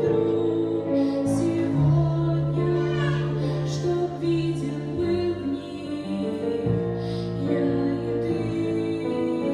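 A slow, gentle church song sung by a female voice with instrumental accompaniment, the notes long and held.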